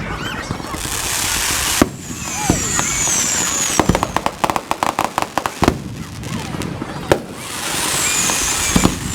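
Fireworks display played at double speed: several sharp bangs of shells bursting, with rapid crackling in the middle and again near the end, between stretches of hiss.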